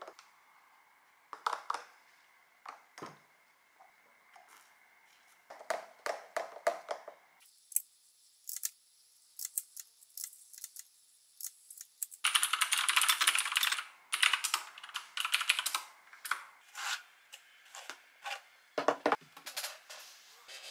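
Typing on a computer keyboard: scattered key clicks with a dense fast run a little past the middle. In the first few seconds, a few clinks of a utensil stirring a smoothie in a glass mason jar.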